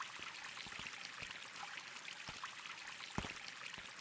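Faint trickling, running water: a steady hiss with scattered small droplet clicks.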